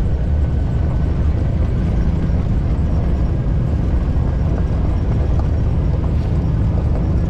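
Side-by-side UTV driving along: a steady, loud low rumble of engine and drivetrain.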